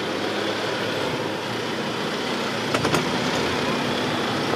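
Jeep Wrangler JL's engine running steadily at low revs as the Jeep crawls over a dirt trail. A few sharp clicks come close together about three seconds in.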